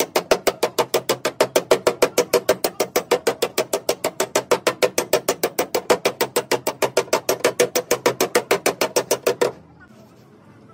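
A hammer tapping rapidly on a car's steel rear quarter panel, about six even blows a second, which stop abruptly near the end.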